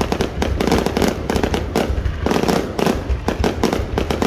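Aerial fireworks going off in a rapid, unbroken run of bangs and crackles, many reports overlapping.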